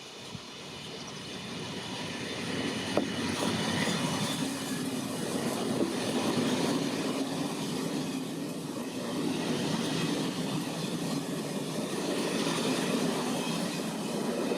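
A train running on the rails, growing louder over the first few seconds and then staying steady, with one sharp click about three seconds in.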